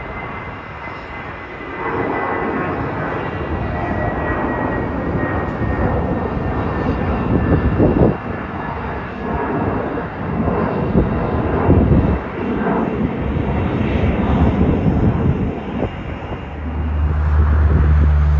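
Jet airliner climbing out after take-off: a loud, rough engine roar with surging rumble and a faint high whine slowly dropping in pitch. Near the end it gives way to a steady low hum.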